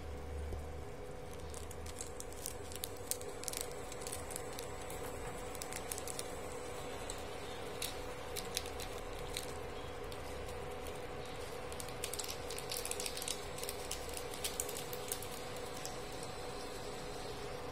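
Scattered light clicks and crackles over a steady low hum, from a pan of instant noodles in broth being prepared, with foil seasoning sachets handled over it. The clicks come in clusters, thickest a few seconds in and again near the end.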